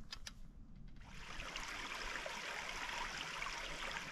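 Small forest stream running over mossy rocks: a steady rush of water that comes in about a second in.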